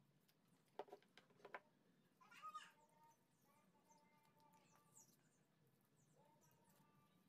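Near silence: a few faint clicks about a second in, then a brief faint animal call about two and a half seconds in.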